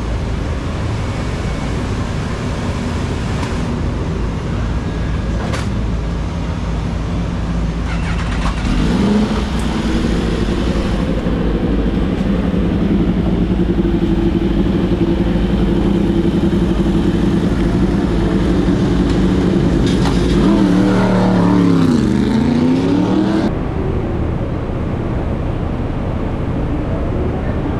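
Yamaha YZF-R1 superbike's crossplane inline-four engine running at a steady idle, then its pitch dips and climbs again as the throttle is worked. Before and after it, steady background noise.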